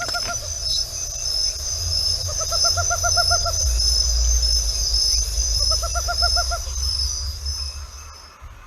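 Tropical screech owl calling: three short trills of quick, evenly spaced hoots. A steady high insect drone runs underneath and stops near the end, and there is a low rumble below it.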